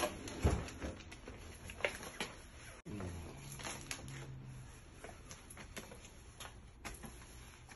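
Scattered light clicks and taps of food and utensils being handled during seasoning and marinating, over a low steady hum.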